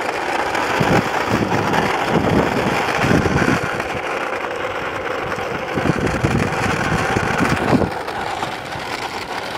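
Wind rushing and buffeting over the microphone while moving fast, with irregular low rumbling surges.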